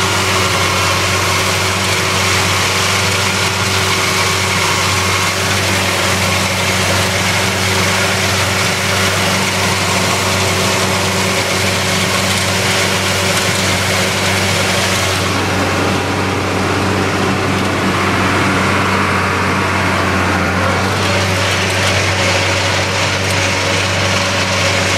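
Tractor engine running steadily under load, pulling a New Holland mower-conditioner that is cutting hay, heard from inside the tractor cab.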